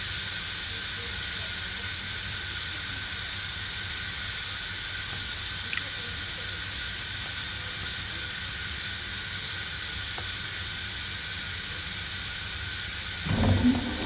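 Steady hiss of air around a stopped industrial air compressor, with one faint click about halfway through. Near the end a sudden low rumble as the compressor motor starts up again after the reset.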